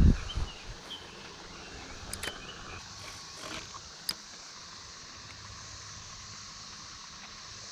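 Quiet outdoor background by a pond, with a few short high chirps and scattered sharp clicks; a low bump right at the start.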